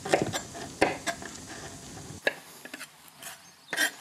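Kitchen knife chopping crisp pork cracklings on a wooden cutting board: a run of quick knife strikes, sparser after about two seconds, with a louder strike near the end.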